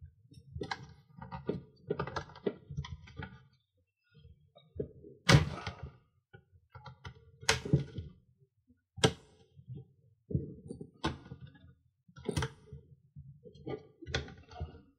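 Plastic RC kit parts being handled and fitted together by hand: irregular clicks and light knocks, with about six sharper knocks spread through, each a few seconds apart.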